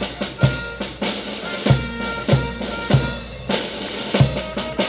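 Parade marching band drums playing a steady march beat: a bass drum striking just under twice a second, with snare drum strokes and rolls between the beats.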